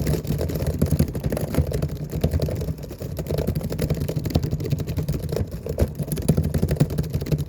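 Fast, aggressive typing on a laptop keyboard: a dense, unbroken run of key clicks and thumps.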